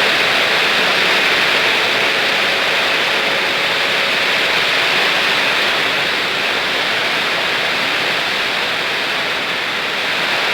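Steady rushing noise with no rhythm or pitch.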